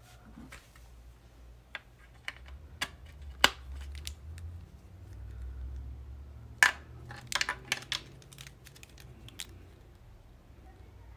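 Irregular small hard clicks and taps of rechargeable batteries and their plastic charging-cable plugs being handled and knocked together in the hand. The sharpest knocks come about three and a half and about seven seconds in, the second followed by a quick run of lighter clicks.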